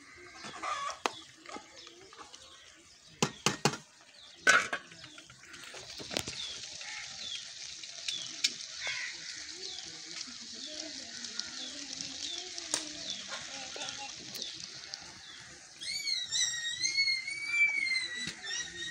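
Beef stew simmering and sizzling in an aluminium pot on a charcoal stove, a steady high hiss, with short bird chirps repeating through it. A few sharp knocks come around three to five seconds in. Near the end a bird gives a loud, drawn-out call.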